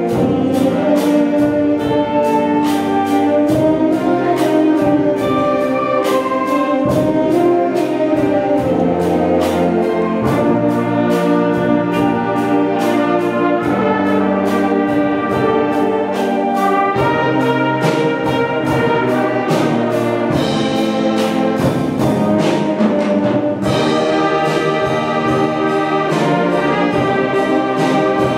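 School concert band playing a piece: flutes, clarinets, saxophones and trumpets over a drum kit keeping a steady beat, with electric bass underneath.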